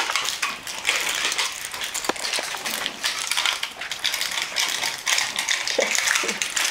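Barbet puppies tugging and chewing at a muffin package, a continuous dense crinkling and crackling made of many small clicks. Two short pitched squeaks come near the end.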